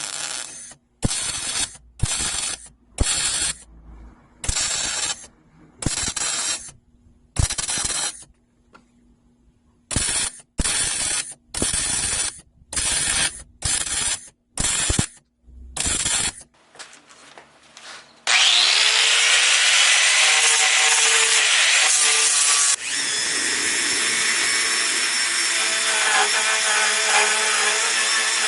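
Argon/CO2 MIG welder laying a run of short stitch welds on thin sheet-metal patches: about fourteen separate bursts of crackling sizzle, each under a second, the "sizzling bacon" sound of a correctly set wire speed. From about eighteen seconds in, a handheld power grinder spins up and runs steadily against the metal.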